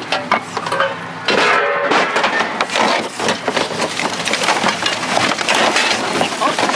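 Hands rummaging through a full trash can: plastic bags and papers crinkling, with loose items clattering and knocking against each other and the can's sides.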